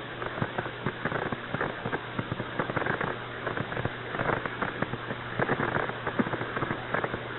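Radio static on the Apollo 11 air-to-ground voice link between transmissions: a dense, irregular crackle and hiss over a steady low hum.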